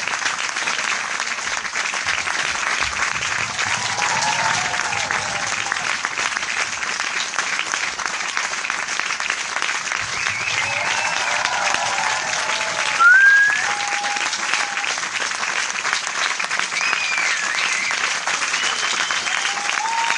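Large audience applauding steadily, with scattered voices calling out over the clapping. A short, loud rising cry stands out about two-thirds of the way through.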